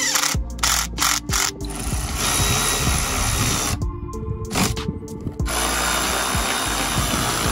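Cordless power tools driving fasteners: several short spurts in the first couple of seconds, then longer steady runs. Background music plays throughout.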